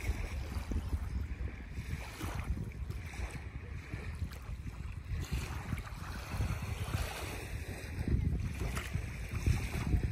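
Wind gusting across the microphone, with small waves lapping on a sandy shore.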